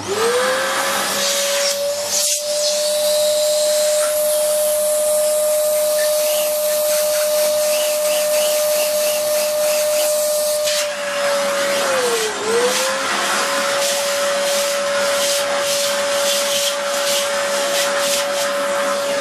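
Vacuum cleaner switched on, its motor whine rising quickly to a steady pitch over a loud suction hiss as it draws concrete dust out of a drilled hole. About twelve seconds in the pitch dips briefly and recovers, and irregular clicks run through the second half.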